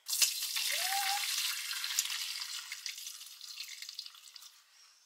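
Sorrel liquid poured from a stainless steel pot through a metal strainer into a large stainless steel bowl: a splashing stream that starts suddenly, is loudest at first and tapers off over about four seconds as the pot empties.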